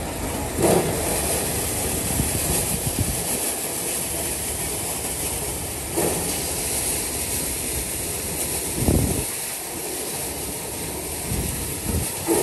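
Tractor-driven maize sheller running steadily as it shells dried corn cobs, with a few brief louder surges as basinfuls of cobs are tipped into its hopper.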